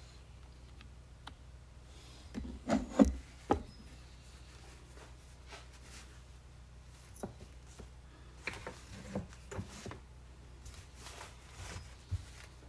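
Hands sliding, rubbing and setting down pieces of EVA foam on a workbench, with a cluster of soft knocks between about two and four seconds in and scattered lighter taps and rustles later. A steady low hum runs underneath.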